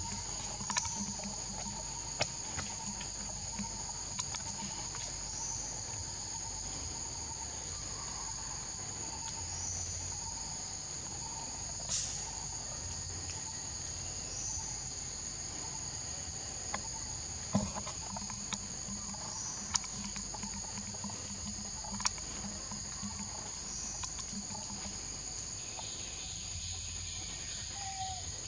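Steady, high-pitched drone of a forest insect chorus, with a few faint clicks scattered through it.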